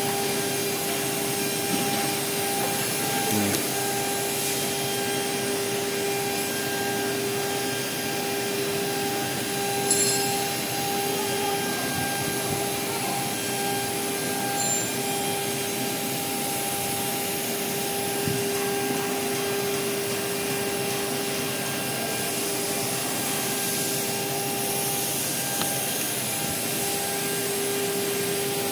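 CNC router machinery running steadily: an even mechanical noise with a constant whine, broken by a couple of light knocks about three and ten seconds in.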